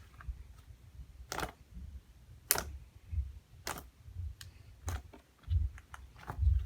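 Butter slime squished and stretched by hand, giving irregular sticky clicks and pops about once a second over low dull handling thumps.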